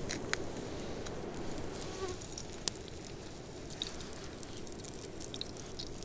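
Mosquitoes buzzing steadily close by, with a few sharp crackles and clicks from a small wood fire burning under a frying pan.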